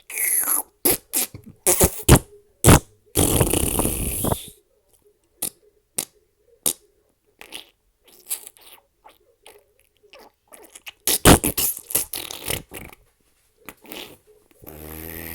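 A string of fart sound effects, one after another with short gaps: brief sputtering and hissing pops, a longer drawn-out one about three seconds in, a rapid cluster about eleven seconds in, and a low buzzing fart starting near the end.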